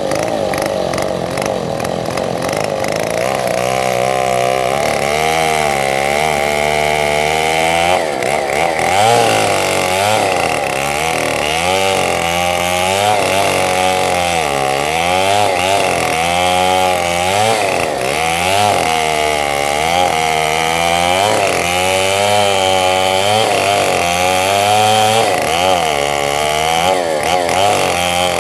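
Two-stroke chainsaw running at high revs while cutting munggur (rain tree) wood, its engine pitch dipping and recovering again and again as the chain bogs and frees in the cut.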